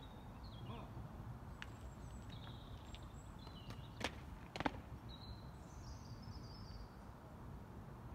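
Boots stamping twice on tarmac, two sharp knocks about half a second apart, as a small squad of marching cadets halts. Small birds chirp throughout over a low steady rumble.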